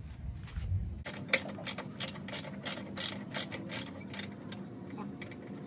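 Hand ratchet wrench clicking in a quick run, about three to four clicks a second, starting about a second in.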